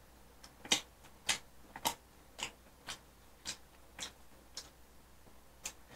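A person chewing a mouthful of sausage: a run of short mouth clicks and smacks, unevenly spaced at about one every half second.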